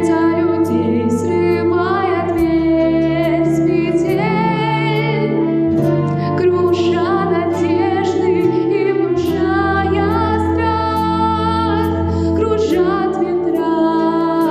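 A female voice singing a slow song over an instrumental backing track, with bass notes that change every couple of seconds.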